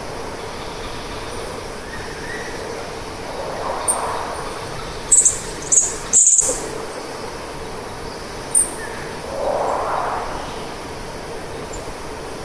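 Field recording of unidentified animal calls, which the recordist attributes to a yowie: drawn-out barks a few seconds apart, with short high chirps and whistles between them.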